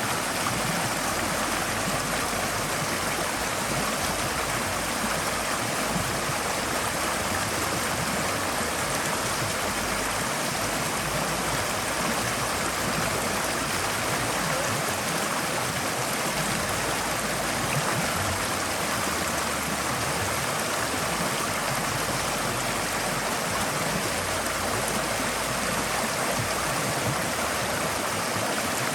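A forest stream flowing steadily, its water rushing and gurgling over stones in an even, continuous wash.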